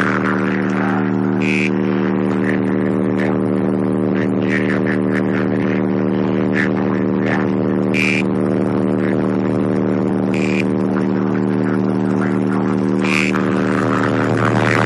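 Two 12-inch MTX Audio 8500 subwoofers in a sealed box playing a steady, deep sustained bass tone through the car stereo, changing near the end.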